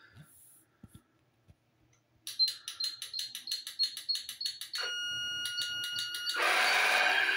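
Rapid clicking of a radio-control transmitter's trim, about five clicks a second, each with a short high beep. Then a steady electronic tone from the boat's speed control and motor, joined about six seconds in by a louder, fuller whirring mixed with several tones, as the trim moves the speed control off its neutral point.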